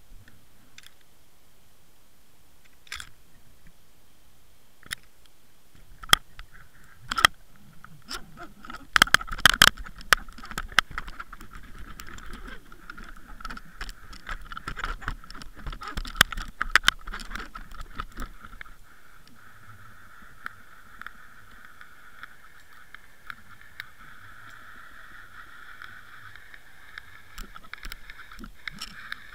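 Knocks and clicks of a fishing rig and line against an underwater camera's housing, heard muffled through the water, over a steady hiss. The knocks come thickest between about six and seventeen seconds in.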